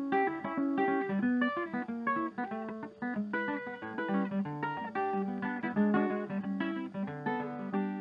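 Background music: a quick melody of short plucked notes over a steady lower line.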